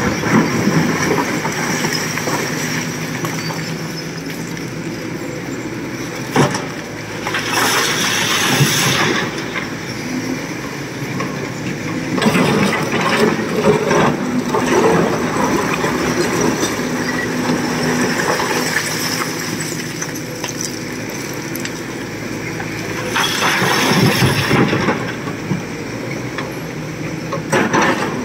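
SANY crawler excavator's diesel engine running under load as its bucket digs into and dumps broken quarry stone, with rock scraping and clattering. A sharp knock comes about six seconds in, and twice, about a third of the way in and near the end, a louder rushing clatter rises for a second or two.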